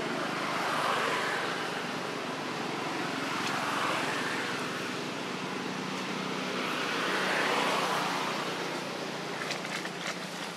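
Steady rushing noise of distant road traffic, swelling and fading every few seconds as vehicles pass. A few light rustles of dry leaves come near the end.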